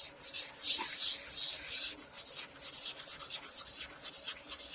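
Abrasive paper on a fret-levelling bar rubbed over a guitar neck's metal frets in repeated back-and-forth strokes, giving a rasping hiss. The frets are being levelled, taking down the last high spots.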